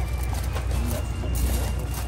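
Steady low engine drone, with faint voices of people talking in the background.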